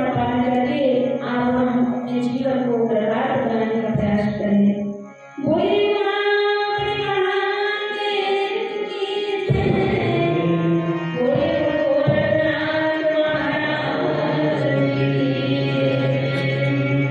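A woman sings a slow devotional melody to her own harmonium accompaniment, the reeds holding steady chords under her voice. There is a brief pause about five seconds in, and then the singing resumes.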